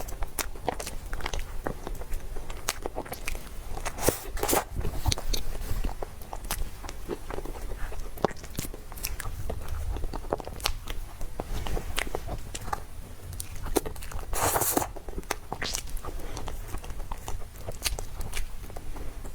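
Close-miked eating sounds of cake being chewed: many small wet mouth clicks and soft bites, with a brief louder noisy burst about four seconds in and again near fourteen and a half seconds.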